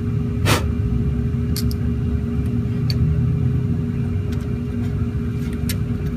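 Steady low rumble with a constant hum. A few sharp metal clicks sound over it, the loudest about half a second in, as the U-joint cap bolts are started on the second side of the driveshaft yoke.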